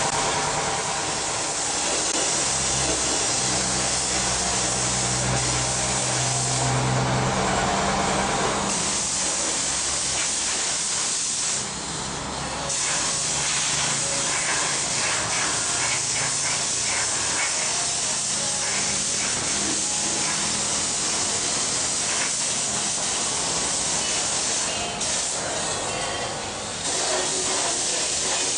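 Compressed-air paint spray gun hissing steadily while paint is sprayed onto a steel vehicle chassis frame. The hiss breaks off briefly a few times as the trigger is let go. A low steady hum runs under it for the first several seconds.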